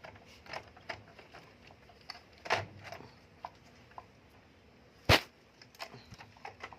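Scattered light clicks and knocks of a photocopier's plastic parts being handled as a unit is fitted back in, with one sharp knock about five seconds in.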